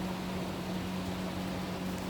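Air Cool-built 2001 Hampton Bay Carriage House 52-inch five-blade ceiling fan running steadily: a low, even motor hum over a constant rush of moving air.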